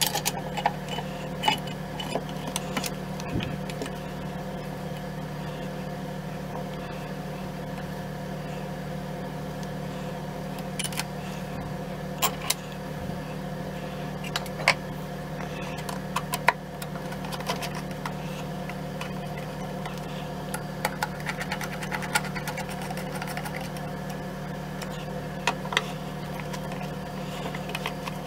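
Steady low hum, with scattered sharp clicks and taps from small metal parts being handled and fitted while a Mauser K98k rifle is reassembled.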